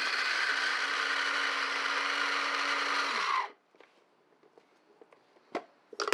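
Black & Decker Handy Chopper mini food processor running steadily as it chops pickles, then winding down with a falling pitch and stopping about three and a half seconds in. A couple of light knocks follow near the end.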